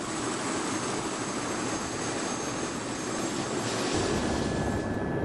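Tour helicopter's turbine engine and main rotor running on the ground: a steady rush with a faint high whine. The low end grows heavier about four seconds in.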